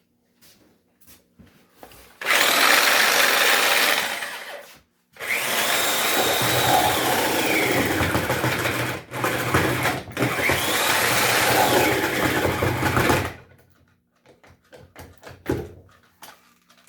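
An old corded power tool's electric motor running in two bursts, the first about two and a half seconds and the second about eight seconds with two brief dips, its whine rising and falling in pitch. The tool has a fault inside that keeps flipping the breaker.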